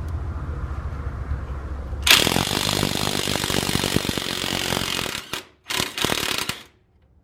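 A power wrench running on a nut in two loud bursts, about three seconds and then under a second, each stopping abruptly, over a low steady rumble at the start.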